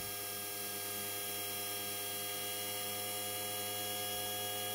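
Steady electrical hum with several fixed whining tones from a homemade three-phase inverter running a mains AC motor, its DC bus pushed to about 285 volts.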